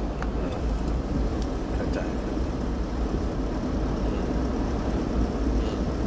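Steady rumble and hiss of a vehicle on the move, with a few faint clicks.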